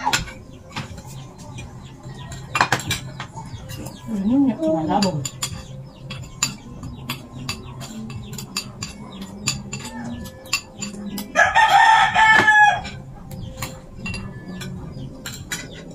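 Spoons and forks clinking and scraping on plates during a meal, with a rooster crowing once about eleven seconds in, the loudest sound.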